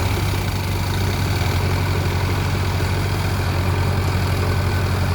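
Heavy diesel engine running at a steady speed, a low, even drone with no revving.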